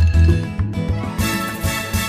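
Background music with a strong bass beat.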